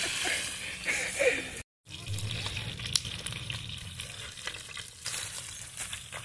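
Jaraqui fish frying in oil in a plow-disc pan: a steady sizzle with scattered crackling pops. The sound drops out for a split second a little under two seconds in.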